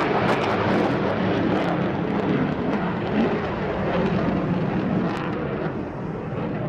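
Jet noise from a Eurofighter Typhoon FGR4's twin Eurojet EJ200 turbofans in afterburner as the fighter climbs away. It is a dense, steady roar with scattered sharp crackles, slowly fading near the end.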